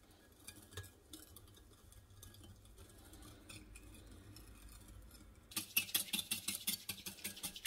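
Wire whisk stirring evaporated milk and sugar in a glass dish to dissolve the sugar. It is faint at first. About five and a half seconds in it turns to fast, even strokes, about five a second, with the tines clicking against the glass.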